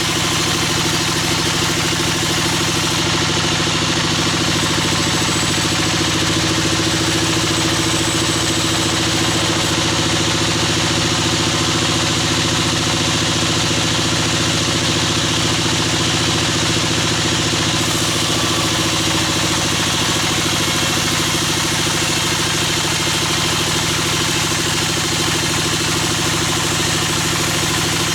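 Sawmill bandsaw machinery running, a loud, steady, engine-like mechanical drone that holds unchanged throughout.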